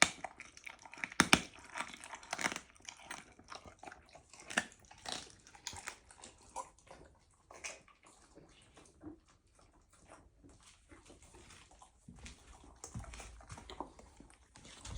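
Puma chewing and crunching raw chicken: irregular crunches, snaps and wet bites, the loudest and most frequent in the first few seconds, thinning out later.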